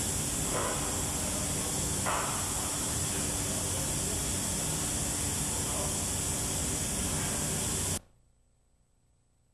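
A steady, even hiss that cuts off suddenly near the end.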